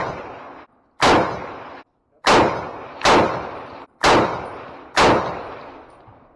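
M1 Garand firing .30-06 M2 ball ammunition: a string of sharp rifle shots about a second apart, six in all counting one right at the start, each trailing off over about half a second.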